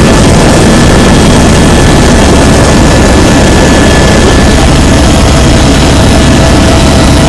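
Helicopter engine and rotor noise heard inside the cabin in flight: a loud, steady, unbroken din with a faint high whine running through it.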